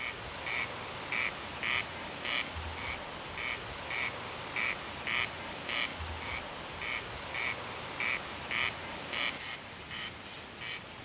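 An animal's short call, repeated about twice a second.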